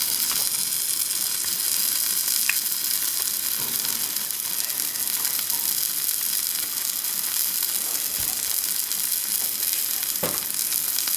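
A tortilla quesadilla frying in butter in a hot pan, sizzling steadily, with a few faint clicks and a brief low sound near the end.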